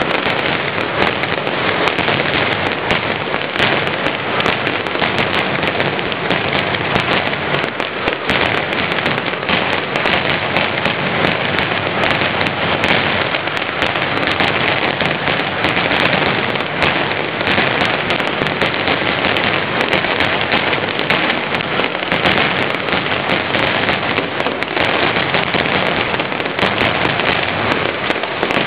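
Mascletà firecrackers going off in a dense, continuous barrage of rapid bangs and crackles with no let-up.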